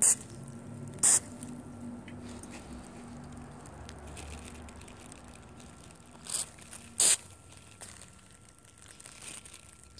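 Short hisses of an aerosol can of nonstick cooking spray being sprayed in quick bursts: one about a second in and two around six to seven seconds in, over a faint low hum.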